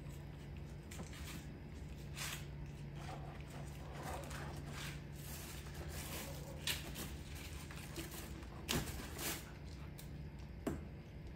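A baby macaque gnawing and handling an ear of corn: scattered short crunching and rustling noises, with a sharp knock near the end, over a steady low hum.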